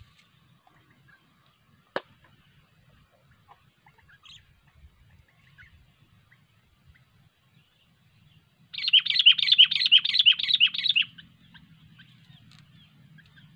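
Sooty-headed bulbul (kutilang) giving a loud, rapid chattering call of about nine quick repeated notes over some two seconds, past the middle, amid faint scattered bird chirps. A single sharp click sounds about two seconds in.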